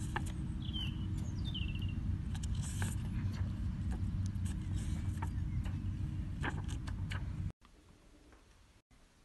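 Garden ambience: a steady low rumble with scattered light clicks and rustles, and a bird giving a short falling chirp about a second and a half in. About seven and a half seconds in it cuts abruptly to faint room tone.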